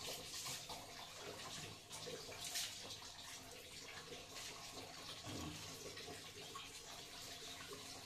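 Water spraying and splashing from a handheld shower head onto a tiled bathroom floor, with a sharper splash about two and a half seconds in.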